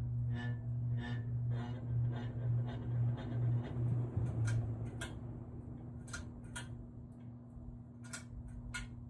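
Ceiling fan motor buzzing with a steady low mains hum instead of turning, because its start capacitor has blown and bulged. The hum weakens about four seconds in, and a few sharp clicks follow.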